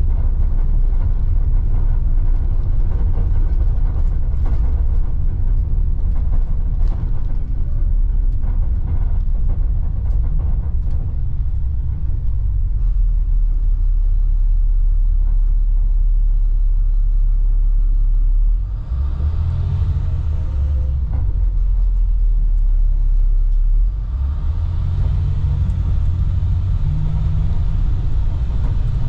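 Cabin ride noise from the back of a 2010 IC FE300 school bus: the MaxxForce DT inline-six diesel's low drone mixed with road rumble, with scattered clicks and rattles in the first part. About two-thirds of the way in, and again near the end, the drone dips briefly and then climbs again in pitch.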